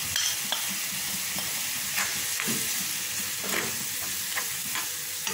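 Onion-tomato masala sizzling in a black iron kadai while a metal spoon stirs in freshly added chilli and turmeric powder. Scattered scrapes and clicks of the spoon against the pan come through the steady hiss of the frying.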